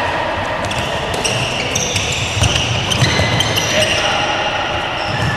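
A handball bouncing and slapping on a sports-hall court several times, with high shoe squeaks on the floor in between and a reverberant hall echo.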